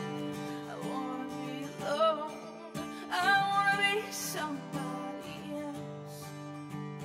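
Acoustic guitar playing chords, with a voice singing a held phrase with vibrato about halfway through.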